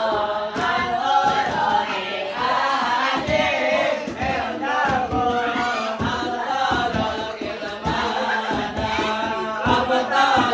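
A group of voices singing sholawat, Islamic devotional chants praising the Prophet, together in a steady flowing melody, with scattered low thumps underneath.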